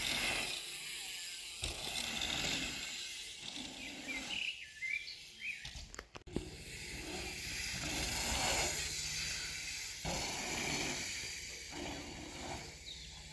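Quiet outdoor ambience: a steady hiss with a few faint bird chirps.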